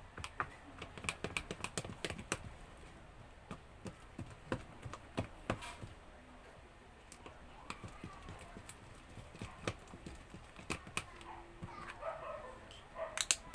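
Slime mixture being stirred and worked after detergent is added: irregular sharp clicks and smacks, in clusters, with faint voices near the end.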